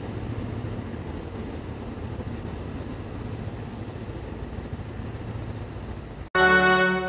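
JR East E501-series electric train pulling away from the station, heard as a steady low rumble. About six seconds in, the rumble cuts off suddenly and loud brass music starts.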